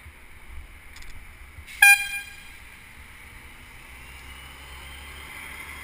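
A bicycle bell rung once about two seconds in, a single sharp ding that rings on briefly, warning pedestrians walking ahead on the path. Under it runs a steady low rumble of wind and traffic from riding.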